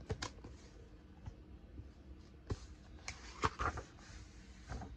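Quiet, brief rustles and light brushes of a hand handling a notebook's smooth, soft paper pages, with a few short ones clustered about two and a half to four seconds in.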